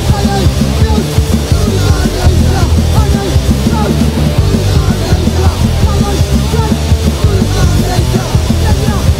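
Loud punk rock music with guitars and drums.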